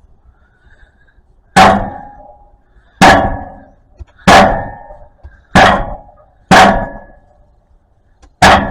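Catalytic converter shell on a Ford E350's exhaust struck six times, about every second and a half, each a sharp metallic clang that rings briefly. It is being knocked to find the rattle from something loose inside, which the owner blames for the van bogging down.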